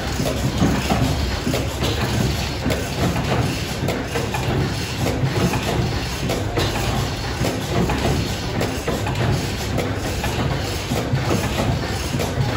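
Antique stationary gas engines running together, a steady dense mechanical clatter over a low rumble.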